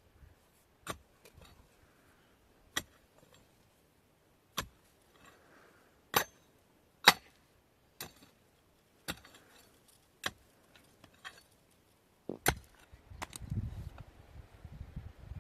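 A series of sharp knocks, about a dozen at uneven intervals of one to two seconds, with near quiet between them. A rustle starts near the end.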